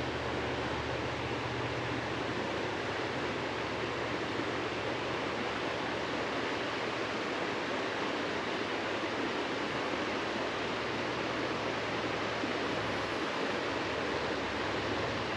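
Steady rushing of a flowing creek, an even hiss of moving water, with a faint low hum beneath it that fades out about three-quarters of the way through.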